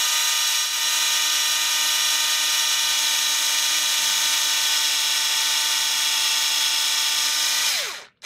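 Hitachi DB3DL2 3.6-volt cordless screwdriver running on high, driving a 7/64-inch bit down through a moulded InstaMorph plastic piece. It gives a steady motor whine that winds down and stops near the end.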